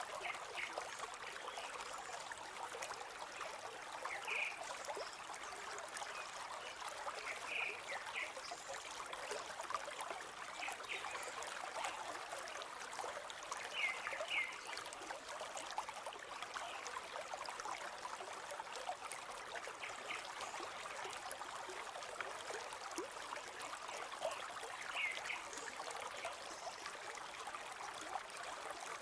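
A river flowing steadily over stones, a continuous babbling rush of water. A handful of short high notes stand out now and then above it.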